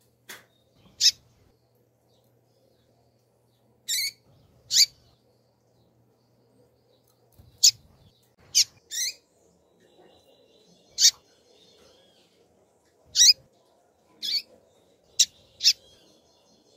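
Female double-collared seedeater (coleiro) calling: about a dozen short, sharp, high peeps, spaced irregularly between under half a second and about three seconds apart. This is the female's call that breeders play to stir male coleiros.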